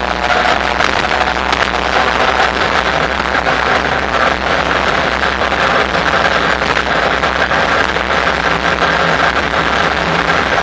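Steady riding noise of a Bafang BBSHD mid-drive e-bike under way: wind rushing over the microphone, with a faint steady motor hum underneath.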